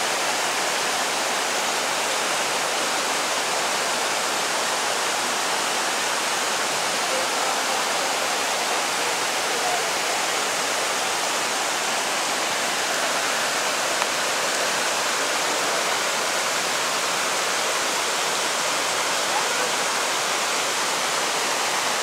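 Creek water rushing over rocky cascades and small falls: a steady, unbroken rush of white water.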